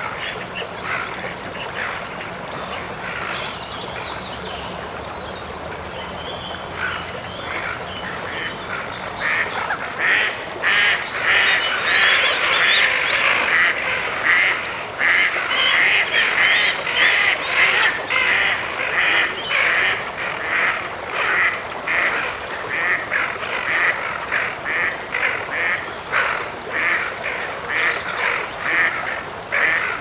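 Waterbirds calling: a long run of short, repeated calls, sparse at first, then louder and in quick succession from about ten seconds in.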